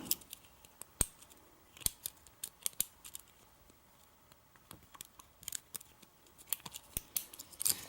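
Lock pick and tension wrench working the pin stack of a KW1-keyway pin-tumbler lock: irregular sharp metallic clicks and scrapes, a few a second, as the pins are set until the lock opens.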